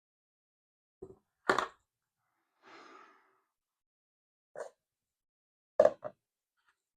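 Several short knocks and clacks of containers and utensils being handled while soap batter is split into portions, the loudest about one and a half seconds in and another pair near the end, with a brief soft hiss around three seconds in.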